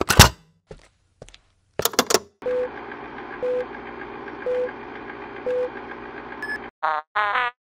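Old-film countdown sound effect: a few crackles and pops, then a steady hum with a short low beep once a second, four beeps in all. Near the end, short warbling tones begin, about two a second.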